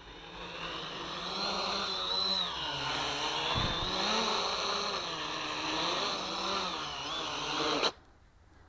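XK X350 quadcopter's motors and 8-inch carbon propellers buzzing in flight, getting louder as it comes in close, the pitch wavering up and down with throttle changes. The buzz cuts off abruptly near the end as the motors stop on landing.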